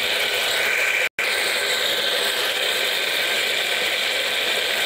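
Onion, tomato and curry leaves frying in hot oil in an aluminium pressure cooker: a steady sizzle, cut by a brief complete dropout about a second in.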